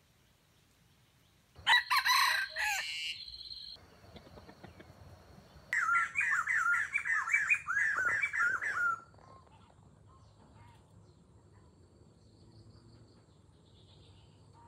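Red junglefowl rooster crowing once, a short clipped crow about two seconds in. From about six seconds in comes a rapid run of repeated chirping bird calls lasting about three seconds.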